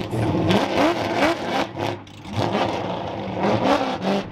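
Car engine revving in a series of short rising pulses.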